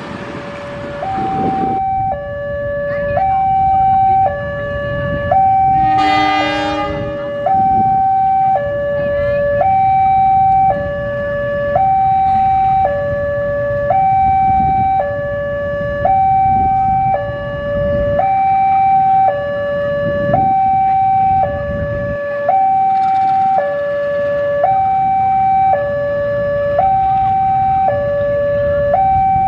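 Level-crossing warning alarm sounding, an electronic two-tone signal switching between a high and a low note about once a second, over the low running of a CC 201 diesel locomotive. About six seconds in the locomotive gives one short horn blast, the driver's departure signal (semboyan 35).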